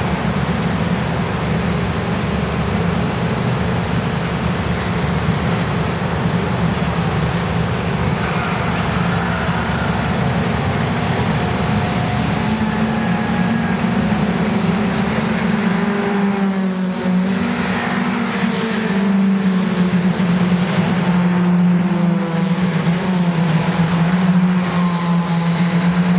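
Race car engines running and revving on the circuit, their pitch rising and falling with throttle and gear changes. The engine drone grows louder about two-thirds of the way in as cars come near and speed past.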